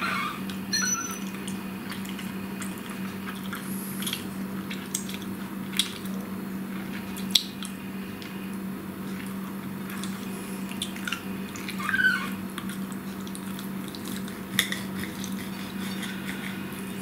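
Knife and fork clinking now and then against a plate while a man chews his food, over a steady low hum.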